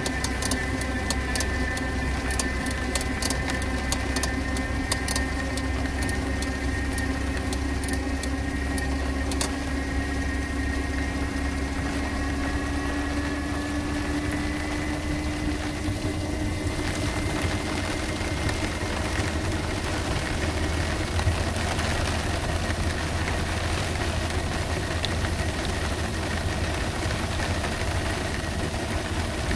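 Inside the cab of a Better.bike PEBL enclosed electric bike riding in rain: a steady motor whine that slowly rises in pitch over the first half, over a low rumble, with sharp ticks for the first ten seconds or so. From about halfway, the hiss of wet road and rain grows louder.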